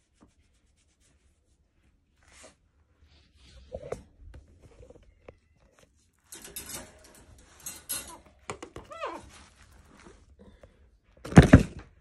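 Handling noise at a wire pet cage: rustling and light metal clattering, a short squeak that falls in pitch about nine seconds in, and a loud thump near the end.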